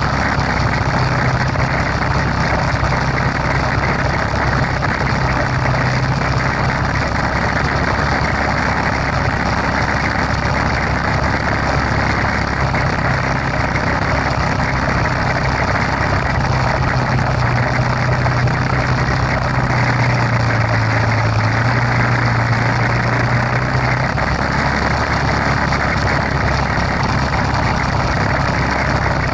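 ATV engine running steadily at a constant pace, with no revving.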